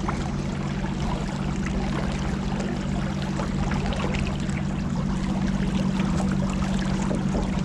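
Motorboat engine running at a steady cruise, a constant low hum, with water rushing along the hull.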